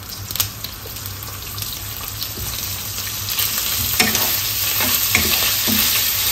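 Boneless chicken pieces sizzling in coconut oil in a non-stick wok, the sizzle growing louder as the oil takes the heat after the chicken's own juices have cooked off. From about four seconds in, a spoon stirs the pieces, with a few scrapes against the pan.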